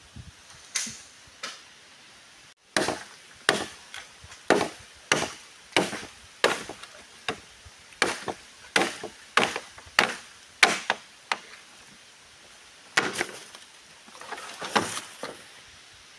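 Machete chopping bamboo: sharp, regular chops about two a second, stopping briefly and then a few more strikes near the end.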